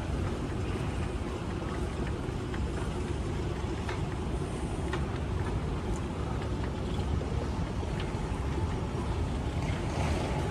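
Moving walkway running underfoot: a steady low rumble and hum, with a few faint clicks.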